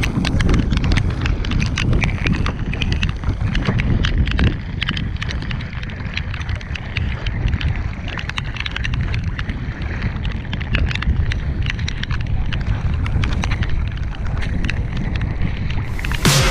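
Wind buffeting the microphone of a bow-mounted camera on a sea kayak, with choppy water sloshing and rushing along the plastic hull and scattered sharp ticks and taps. Electronic music cuts in right at the end.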